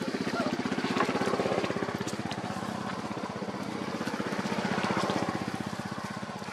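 A small engine running with a fast, even putter, swelling about a second in and again near the five-second mark, then fading near the end.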